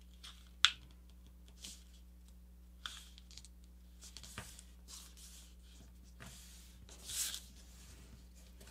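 A sheet of paper being folded and creased by hand: faint rustles and sliding, with a sharp click less than a second in and a longer rustle near the end as the sheet is lifted and turned.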